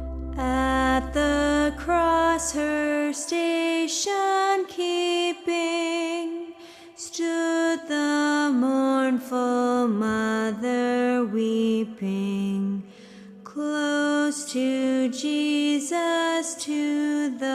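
A woman's voice singing a slow devotional hymn, one short held note per syllable. A low hum sounds under the first three seconds and then stops.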